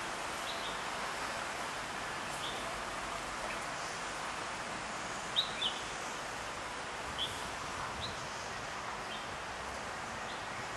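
Steady city street hum with short bird chirps every second or so, a few louder ones around the middle.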